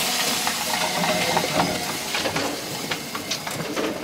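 Mini flour mill / grinding machine whirring, its noise slowly fading, with scattered clicks and rattles of grain.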